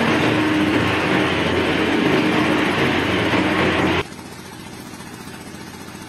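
A mini excavator's engine running loudly and steadily, cutting off abruptly about four seconds in and leaving only a faint steady background.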